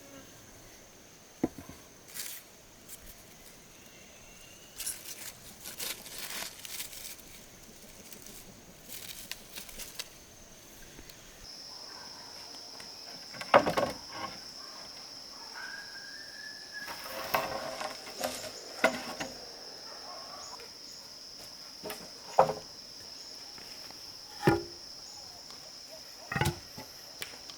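Scattered sharp wooden knocks and short scraping from hand woodworking, the loudest knock about halfway through, over a steady high-pitched insect drone that drops slightly in pitch partway through.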